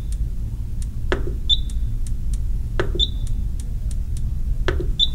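Rain Master Eagle Plus irrigation controller beeping as a four-digit code is entered: three short high beeps about a second and a half apart, each just after a soft knock of the push-to-enter knob being pressed, with faint clicks of the knob turning in between. A steady low hum lies under it all.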